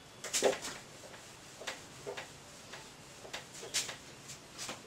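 A handheld whiteboard eraser wiping marker writing off a whiteboard: a run of short, uneven swishing strokes.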